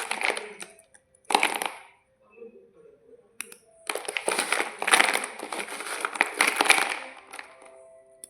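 White slate bars crunching: short spells of crisp, brittle crunches made of many quick cracks, a brief one at the start, another about a second and a half in, and a longer run of about three seconds from about four seconds in.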